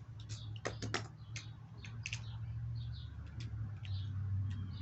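Scattered short clicks and ticks with faint small bird chirps, over a low steady hum.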